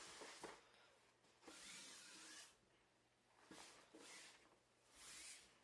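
Near silence, broken by three faint, soft swishes about a second long each.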